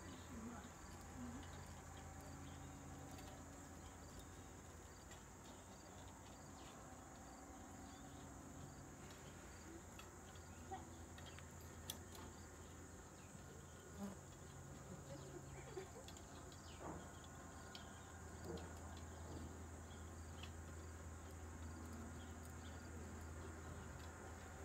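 Faint, steady high-pitched chorus of insects such as crickets, an even drone that holds through the whole stretch.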